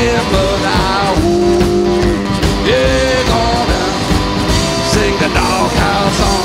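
Live blues boogie: an electric guitar played through a small amp, its held notes gliding up into pitch, over a steady drum beat.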